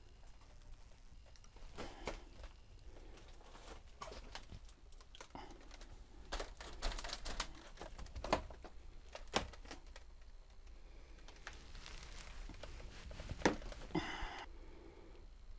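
Faint, irregular clicks, knocks and crunches of broken wooden boards and debris being stepped on and shifted, with a short rustle near the end.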